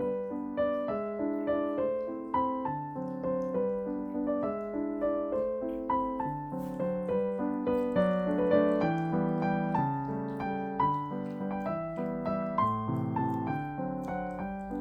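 Solo piano music, a continuous run of notes that each strike and fade.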